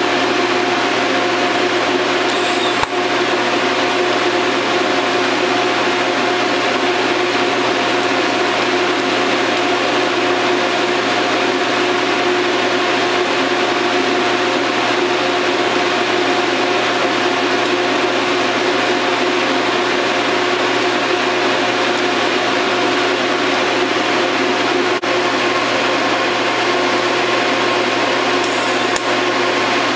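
TIG welding rig running during fine finish passes on steel: a loud, steady hiss with a constant hum, unchanging throughout.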